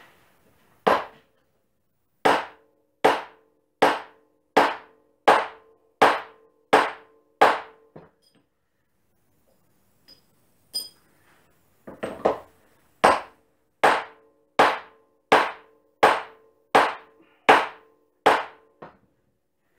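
Hammer blows on a lathe-turned steel punch-and-die tool, driving it to form a sail thimble. Two runs of about nine steady strikes, roughly one every three-quarters of a second, with a pause of a few seconds between them; each blow rings briefly.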